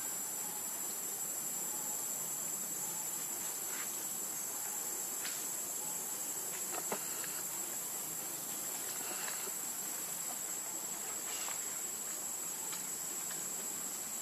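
Insects calling in a steady, unbroken high-pitched drone, with a few faint clicks scattered through it.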